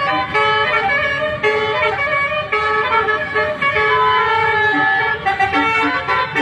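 Multi-tone telolet air horn (Basuri type) on a bus playing a melody: chords of held horn notes that change about every half second. A low rumble runs underneath.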